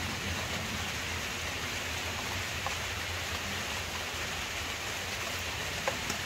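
Steady, even outdoor hiss with a few faint clicks, the plainest about six seconds in, from utensils touching a bowl.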